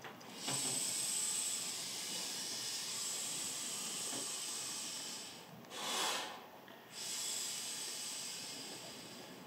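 Deep, slow breaths drawn through a snorkel fitted with a P2 breathing filter, the air hissing through the tube. One long breath runs about five seconds, a shorter, louder one comes about six seconds in, then another long breath fades out.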